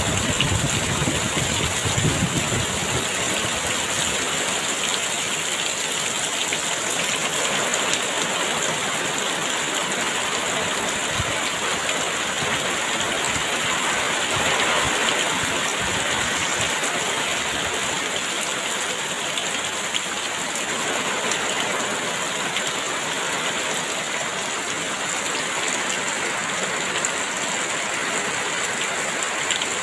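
Heavy rain falling steadily, a dense, even hiss, with some low wind rumble in the first couple of seconds.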